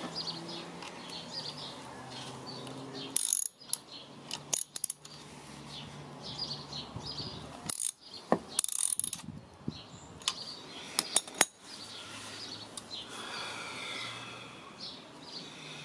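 Socket ratchet wrench clicking as a bolt on a starter motor is tightened, with several sharp metal knocks along the way.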